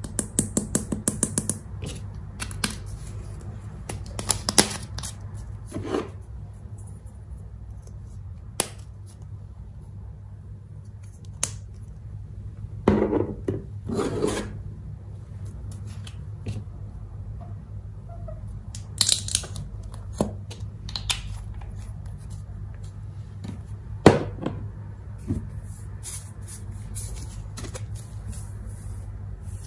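Small plastic craft containers of glitter handled and tapped over glass bowls of slime: a quick run of light clicks at the start, then scattered clicks and knocks over a steady low hum.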